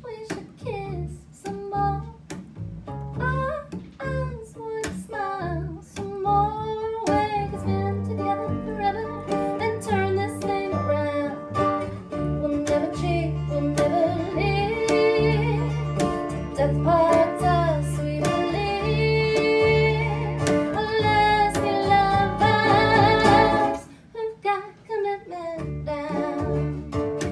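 A small acoustic band playing live: a woman singing over strummed ukulele, acoustic guitar and upright double bass. Near the end the music drops down and gets quieter.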